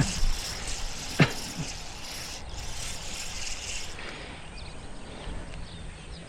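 Steady hiss of city traffic heard from the canal bank, easing off about four seconds in. A single short falling squeak about a second in.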